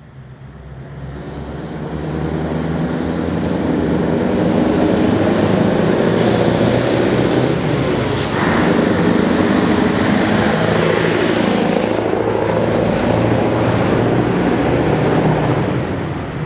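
Scania L141's 14-litre V8 diesel engine pulling the truck by, getting louder as it approaches, staying loud as it passes close, and fading away near the end. There is a short break in the engine sound about halfway through.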